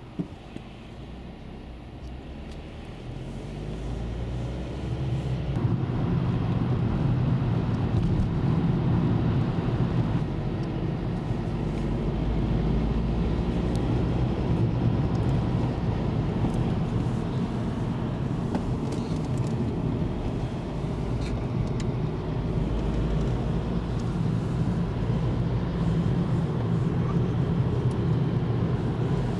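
Car driving: engine and tyre noise builds over the first few seconds as it pulls away from a stop, then holds steady at road speed. A single sharp click right at the start.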